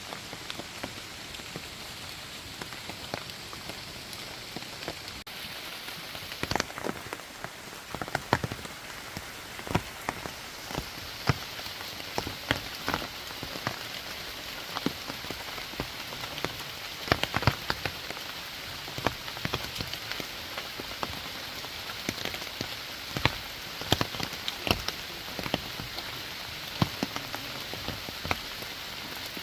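Waterfall swollen with rainy-season water, a steady rushing hiss of falling water with many irregular sharp splashes and drops.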